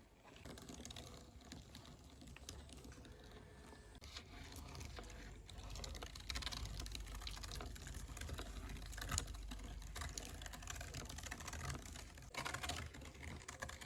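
Barbecue meat crackling over an open grill fire: dense, quick, irregular crackles that grow louder about five seconds in.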